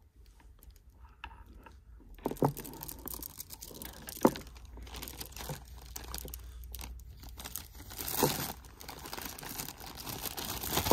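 Clear plastic zip-lock bag crinkling as strands of pearls are stuffed into it and the bag is handled, starting about two seconds in, with a few sharp clicks among the rustling.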